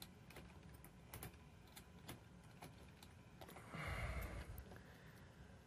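Faint, scattered small clicks and taps from a transistor radio's case being handled and turned over, with a brief louder rustle a little before four seconds in.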